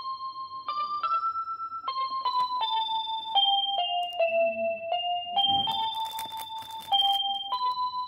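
Background music: a simple electric-piano melody of single held notes, stepping down in pitch and then back up.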